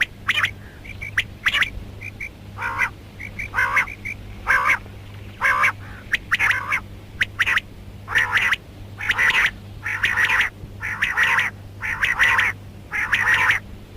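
Rain quail calling: a short harsh call repeated roughly once a second, louder in the second half, with faint short whistled notes in the first few seconds. A steady low hum runs underneath.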